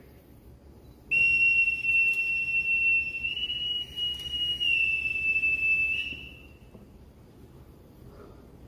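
Boatswain's pipe sounding one long high note for about five seconds, stepping up slightly in the middle and back down before it tails off: the call piping an arriving officer aboard with side honors.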